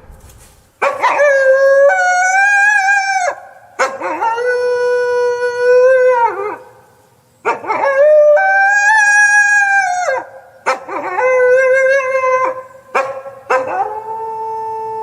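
Wolves howling: about five long howls one after another, each two to three seconds, held on a steady pitch and dropping at the end, with two voices overlapping at different pitches at times.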